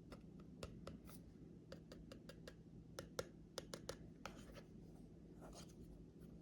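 Faint handling noises from a folding knife and its packaging: scattered light clicks and scratchy rustles, with a quick run of clicks around the middle, over a low steady hum.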